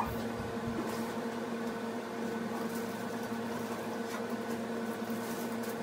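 Air conditioner running: a steady, even hum with a held tone and its overtone. A few faint knocks come from someone moving about.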